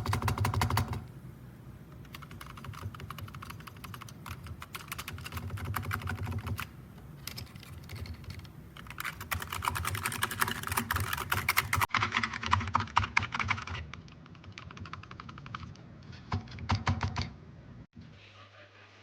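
Typing on a Razer Huntsman Mini keyboard with clicky optical switches: fast runs of sharp key clicks that stop about a second and a half before the end.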